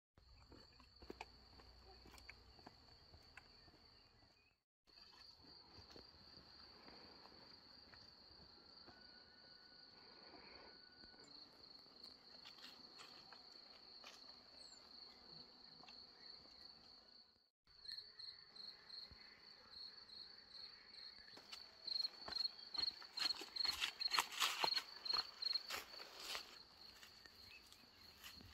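Insects chirping in a steady, high-pitched trill that drops out briefly twice. Near the end a run of louder quick clicks and taps joins in.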